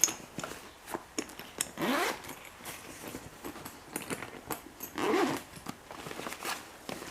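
Handling noises: a string of small clicks and knocks, with two short scraping sweeps, one about two seconds in and another about five seconds in.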